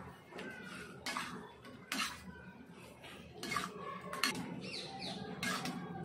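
Perforated metal slotted spoon stirring and tossing chicken pieces through thick sauce in a metal wok, with several sharp scrapes and clinks of the spoon against the pan.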